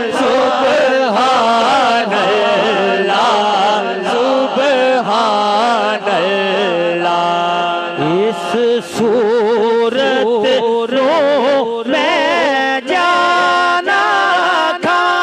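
Men singing an Islamic devotional song in Punjabi through microphones and a PA: a lead voice winding through ornamented, wavering runs, with long held notes in places.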